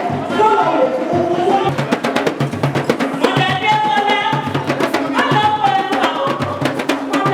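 Music with a steady drum beat, crisp clicking percussion and a held melody line over it.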